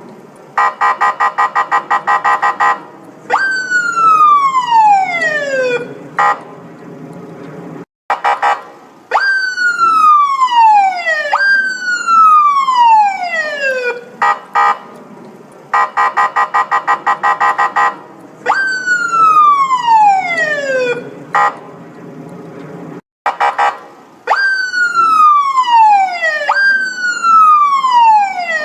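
Electronic police car siren cycling between a rapid stuttering pulse and long falling wails, each sweeping down in pitch over two to three seconds. The sequence repeats about every fifteen seconds.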